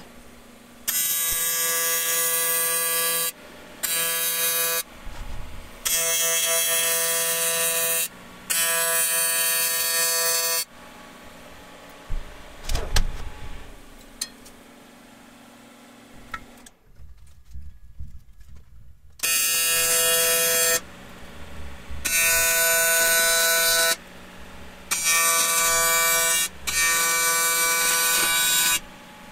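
AC TIG welding arc from a Miller Dynasty 400 on aluminum: a loud steady buzz that switches on and off in eight short welds of about one to two seconds each, with a longer pause in the middle. A single clunk falls in the pause.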